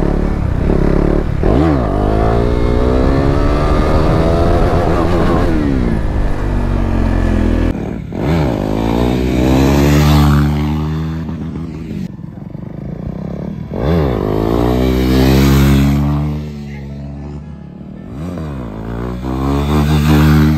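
Single-cylinder KTM 390 Duke engine revving up and down under the rider. After a cut, motorcycles are revved hard and pass by, each one's pitch rising and then falling away, about three times.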